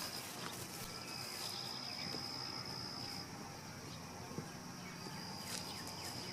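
Faint background with a steady high-pitched whine that drops out for a moment now and then, and a few small clicks.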